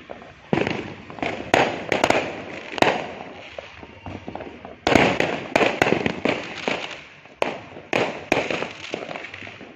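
New Year fireworks going off: a dozen or so sharp bangs at irregular intervals, some in quick clusters, each trailing off into a fading rumble.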